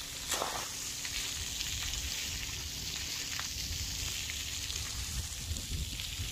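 Splash pad water jets spraying onto concrete: a steady hiss, with an uneven low rumble underneath and a brief louder rush about a third of a second in.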